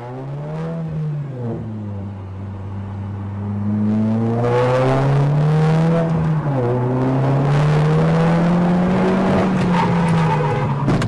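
Car engine accelerating hard, its revs climbing and dropping back with gear changes, about a second and a half in and again about six and a half seconds in; it gets louder about four seconds in.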